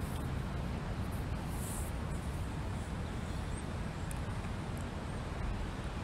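Wind blowing across an open canal path and over the microphone: a steady rushing noise with a heavy low rumble of buffeting.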